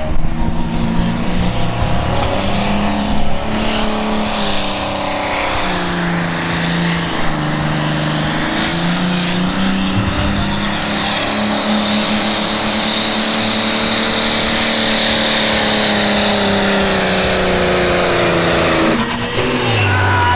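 A CBT Pro Stock pulling tractor's diesel engine runs at high revs under heavy load as it drags the weight-transfer sled, steady and loud, with a high whine over it in the second half. The engine drops off about a second before the end, at the finish of a full pull.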